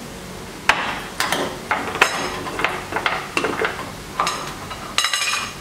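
A dozen or so irregular sharp clicks and knocks from handling a plastic seasoning-powder jar as its screw lid is taken off, with a couple of brief ringing clinks of metal or china among them.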